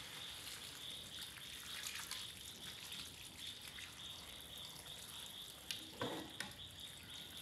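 Water poured in a steady stream from a pot into a wok of stir-fried vegetables and meat, splashing and trickling as the broth rises around the food. A steady high hiss runs behind it.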